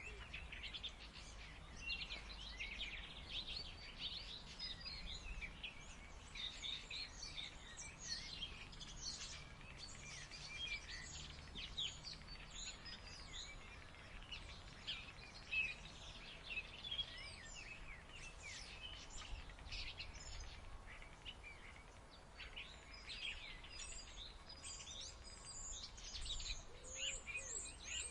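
A starling singing continuously: a busy run of varied whistles, chirps and chattering trills over a low background rumble. A pigeon coos faintly near the end.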